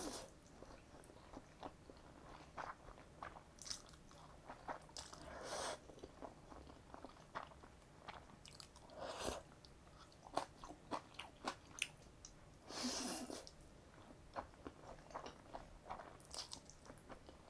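A person eating Jjapaghetti, black-bean sauce instant noodles: a few longer slurps as mouthfuls of noodles are drawn in, with quiet chewing and small wet mouth clicks between them.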